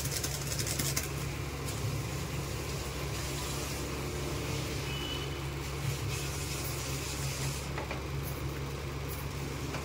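Spice masala frying in oil in a kadai, a steady high sizzle with a little crackle in the first second, over a steady low mechanical hum.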